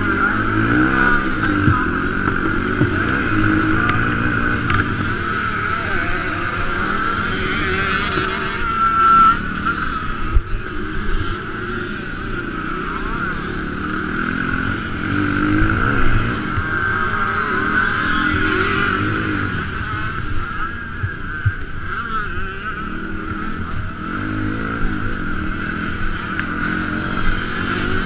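Motocross bike engine heard onboard, revving up and down through the gears at race pace, with steady wind and rattle noise over the camera and a few sharp knocks.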